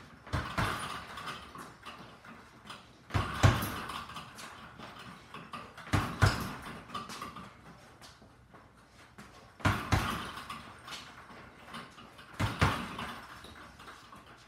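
Punches landing on a double-end bag in short bursts: five quick combinations about three seconds apart, each a pair of sharp smacks followed by fainter rattling as the ball rebounds on its cords.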